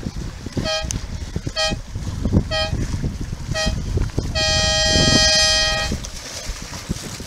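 A horn sounding a series of short blasts about a second apart, five in all, then one long blast of about a second and a half. Wind and water noise rumble underneath throughout.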